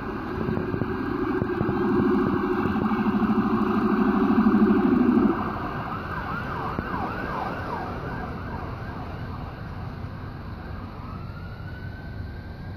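Emergency siren of a fire-and-rescue ambulance sounding. A loud low blaring tone runs under it and cuts off suddenly about five seconds in. The siren then switches to a fast yelp for a couple of seconds and returns to a slow rising wail near the end.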